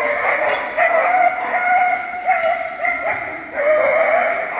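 A dog barking over and over as it runs, a string of drawn-out, high barks each held about half a second to a second.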